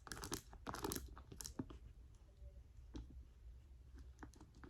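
Close-miked handling of a leather handbag: crisp crinkling and tapping for about the first second and a half, then only a few faint, scattered clicks.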